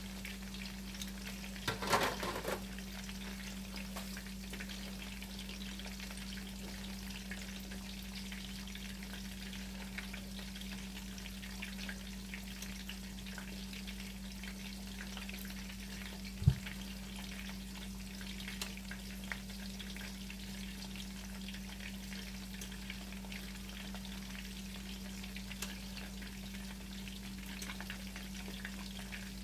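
Chicken cutlets frying in a pan of oil, a steady sizzle with fine crackling, over a steady low hum. A short clatter comes about two seconds in, and a single sharp knock near the middle.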